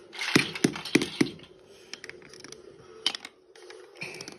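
Plastic Lego Duplo bricks clicking and knocking together as they are handled and pressed onto the build: a quick run of about four knocks in the first second or so, then a couple of lighter clicks later on.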